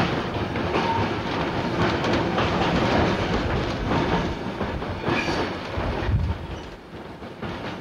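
Streetcar running on its rails, a steady rumble with wheels clicking over the track joints, easing off somewhat near the end.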